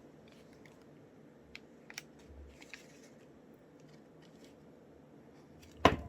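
Scissors snipping magazine paper: a few faint snips, then one sharper, louder snip near the end, over quiet room tone.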